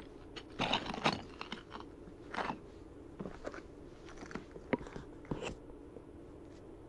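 Footsteps crunching and scraping on loose lava-rock rubble: an irregular run of crunches over about five seconds, loudest about a second in.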